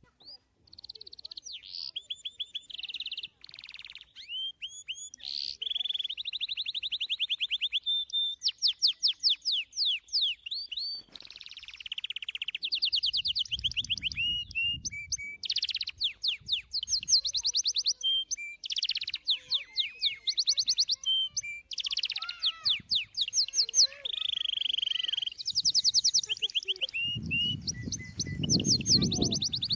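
Songbirds singing a continuous run of fast trills and whistled phrases. A low rumble comes in briefly around the middle and again near the end.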